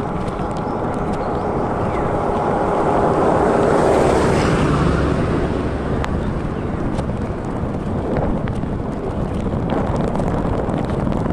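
Wind rushing over the microphone while riding a mountain bike along a road, with a motor vehicle going past that swells to its loudest about four seconds in and then fades.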